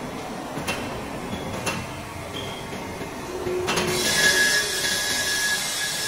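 Metalworking noise at a die casting mould: steady metallic scraping and rubbing with a few sharp clicks, growing into a louder hiss with a high steady whine about four seconds in.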